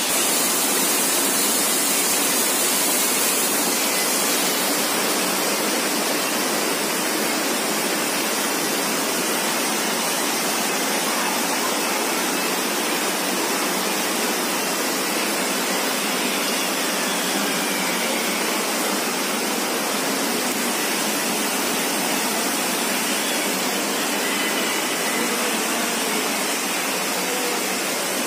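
A steady, even rushing noise with no breaks and no change in level throughout.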